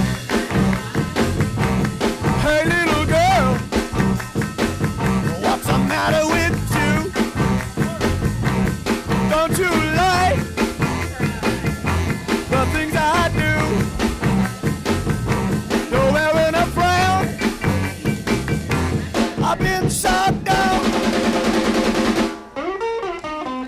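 Upbeat music with a steady drum beat and a sung or played melody, a brief drop about 22 seconds in.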